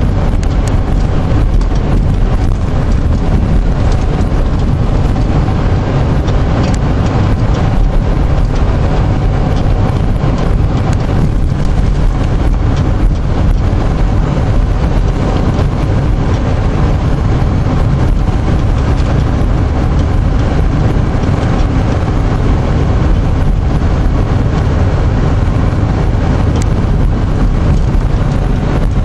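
Steady car interior noise while driving: engine and tyre rumble on a wet road, loud and even throughout.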